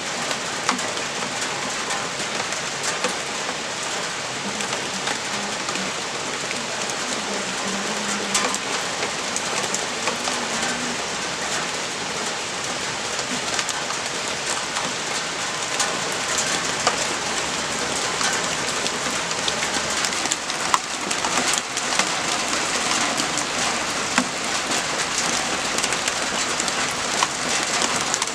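Steady rain falling, an even hiss peppered with many sharp individual drop ticks, growing a little louder in the second half.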